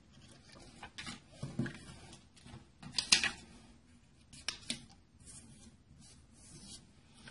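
Quiet rustling and crinkling of a sheet of paper as a page is pulled off a notepad and pressed flat, with a few sharp taps and clicks scattered through it.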